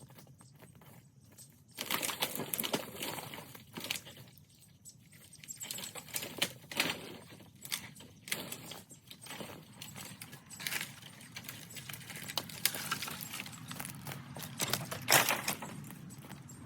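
Irregular rustling and crunching of footsteps and movement through dry leaves and brush, with scattered light clinks and knocks.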